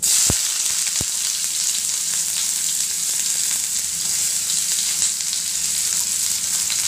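Chopped onion hitting hot oil and crackled shah jeera in a kadhai, sizzling at once, then frying steadily as it is stirred with a spoon. Two brief knocks in the first second.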